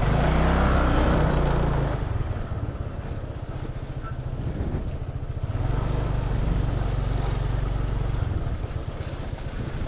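A motor scooter's engine running as it pulls away at low speed, with a low hum that swells twice: over the first two seconds, and again from about six to eight seconds in. Wind and road noise run under it.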